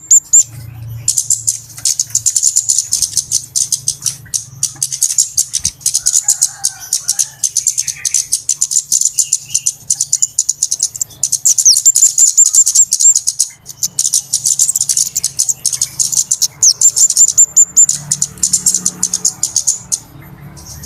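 Flowerpeckers (kemade / cabe-cabean) giving rapid, high-pitched chipping calls and short trills almost without pause, with a few brief breaks. This is an excited-sounding lure call of the kind bird trappers play to draw in small birds.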